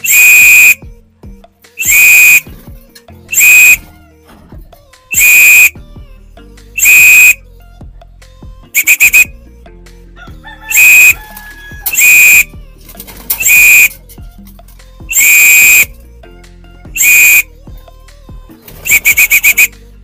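Pigeon-calling whistle: about a dozen loud, shrill blasts, one every one and a half to two seconds, a few of them trilled. It is the signal calling the racing pigeons in to feed.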